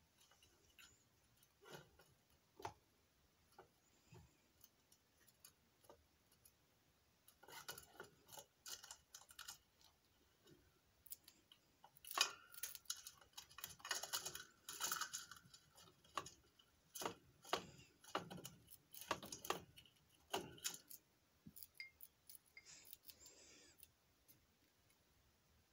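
Pet rats moving about in a wire cage with a metal pan: quiet, irregular small clicks, scratches and scrapes, sparse at first and busiest through the middle.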